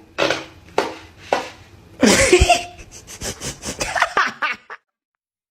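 A person laughing: a few breathy bursts, then a louder outburst about two seconds in and a quick run of short laughs that cuts off near the end.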